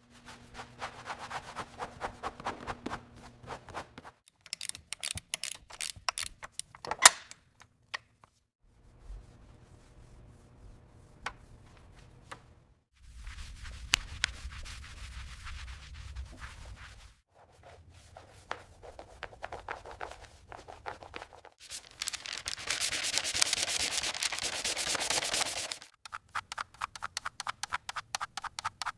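Rubbing and sanding sounds from restoration work on a car body, in short cut-together clips of rapid scraping strokes. There is a sharp click about seven seconds in, and a louder steady hiss of sanding or polishing from about 22 to 26 seconds.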